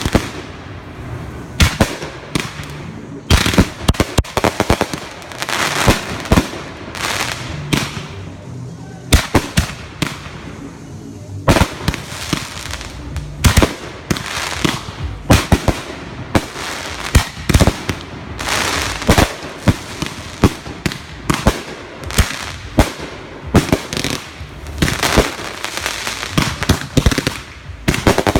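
Consumer fireworks going off in quick succession: dozens of sharp bangs at irregular intervals, with crackling between them.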